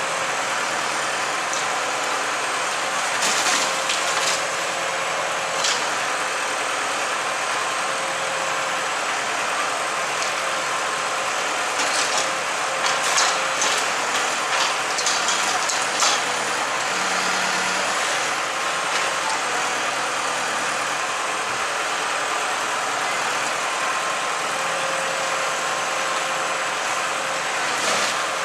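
Large bonfire burning: a steady rushing noise with scattered sharp crackles, in bunches a few seconds in and again around the middle.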